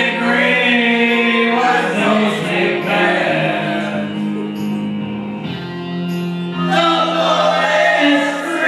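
Live group singing: a man singing into a microphone while several other voices join in on long held notes.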